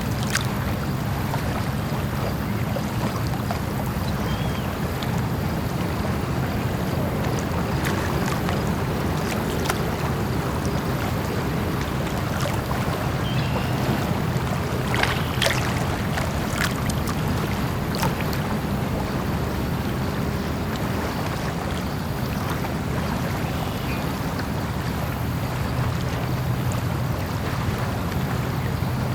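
Lake ambience: small waves lapping at the water's edge under steady wind, with a few short splashes or knocks about halfway through.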